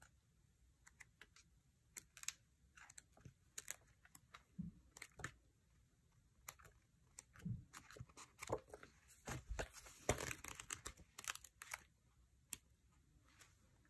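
Faint paper handling: sticker sheets crinkling, with light peeling or tearing and scattered taps and clicks, a few soft thumps, and a denser rustle about ten seconds in.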